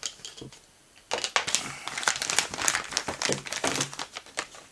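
Plastic packaging crinkling and rustling in the hands as a boxed RC car part is unwrapped, starting about a second in and running in irregular crackles until near the end.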